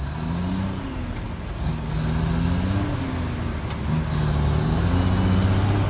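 Heavy tractor-trailer's diesel engine running hard, its pitch rising and falling several times.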